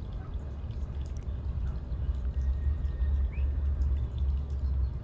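Wind rumbling on the microphone, strongest in the middle, with a few faint, short high peeps from ducklings.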